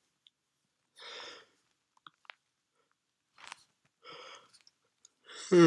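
A man breathing close to the microphone: a few short soft breaths with a couple of faint clicks between them, then a brief louder voiced sound near the end as he starts to speak.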